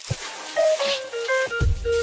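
Background music: a melody of light plucked notes, with the bass and beat dropping out and coming back in near the end.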